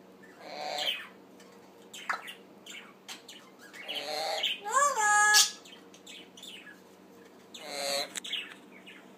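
Blue-fronted Amazon parrot chattering in a few separate calls. The loudest, around the middle, has a call that rises and falls in pitch and ends in a sharp high squeak. A faint steady hum runs underneath.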